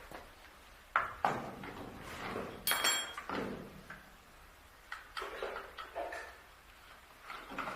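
Irregular knocks and scrapes of parts being handled, with a brief metallic ring about three seconds in.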